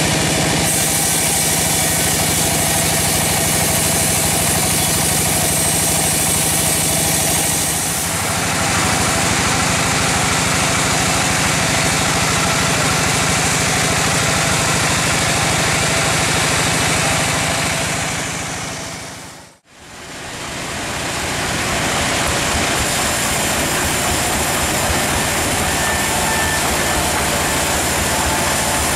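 Large band sawmill running steadily, its band blade cutting through a log. The sound changes about a third of the way in, and fades out briefly and back in about two-thirds through.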